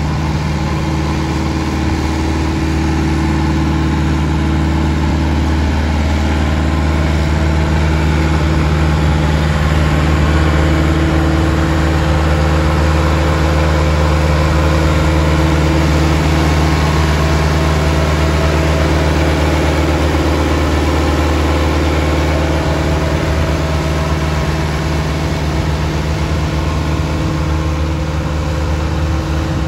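1997 Massey Ferguson 362 tractor's four-cylinder diesel engine running at a steady speed as the tractor drives, the note unchanging and a little louder around the middle.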